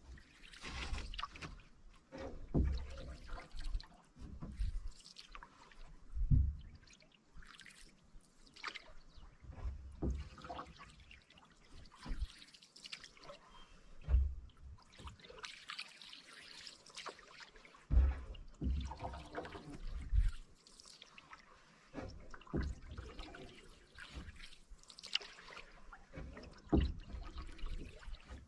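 Canoe paddling on calm water: the paddle blade dipping and pulling through the water, water trickling and dripping off it between strokes, with short low knocks every few seconds.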